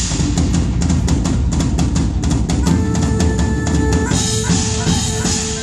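Live band playing through an outdoor PA: a drum kit sets off with a quick, even run of sharp hits, about five a second, and after two and a half seconds a held note joins over the drums.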